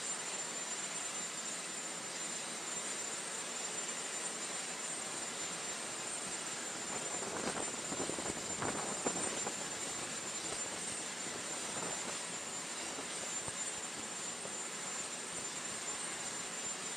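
Steady aircraft-engine noise: an even hiss with a constant high whine. It grows slightly louder and rougher for a moment about halfway through.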